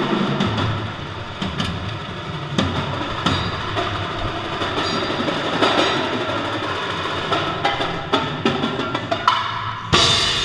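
Percussion ensemble playing: drums and percussion struck in a busy rhythm, with a loud sharp hit near the end.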